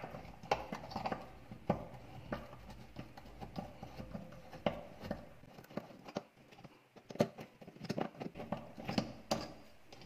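A screwdriver turning the Phillips bolt at the centre of a top-loading washing machine's pulsator counterclockwise to loosen it. Irregular clicks and scrapes of metal against metal and plastic, with a short lull a little past the middle.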